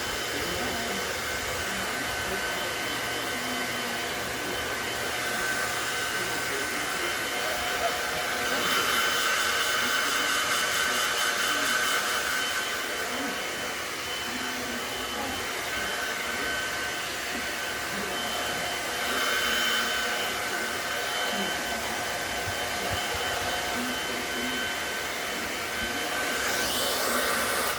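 Hair dryer running steadily, a rushing blow with a thin whine, drying a freshly bathed puppy. It gets a little louder for a few seconds about a third of the way in and is switched off abruptly at the very end.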